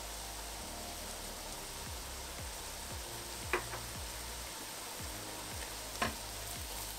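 Sliced onions sizzling steadily as they fry in a stainless-steel pot, with two sharp knocks about three and a half and six seconds in, the second as a spatula stirs the pot.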